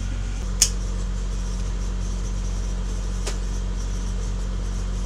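Steady low machine hum, with a sharp click about half a second in and a fainter click a few seconds later.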